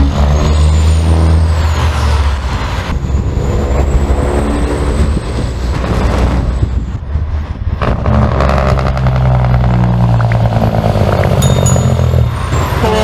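Semi-truck diesel engines running loud as the trucks accelerate. The engine note climbs, breaking briefly about three and eight seconds in.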